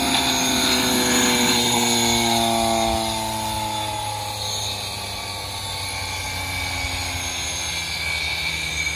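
Small steam turbine running on steam from a wood-stove boiler at about 100 psi: a whine whose pitch slowly falls over the first few seconds, over the steady hiss of escaping steam.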